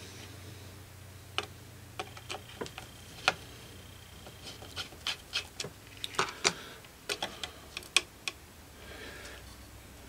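Irregular small clicks and taps of a small screwdriver and screws being handled on a computer motherboard, over a low steady hum.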